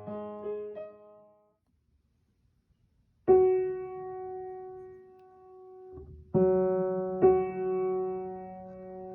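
Piano playing: a run of notes fades out, a pause of about two seconds, then chords struck about three seconds in and twice more near six and seven seconds, left ringing.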